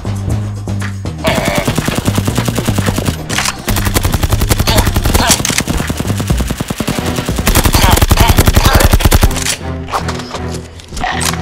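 Rapid automatic fire in several long bursts, about a dozen shots a second, loudest near the end of the firing, over background music with a steady bass line.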